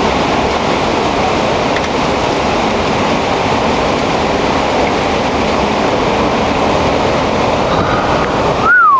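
Hurricane-force wind blowing steadily through the trees and across the microphone. Near the end, a short rising-then-falling tone.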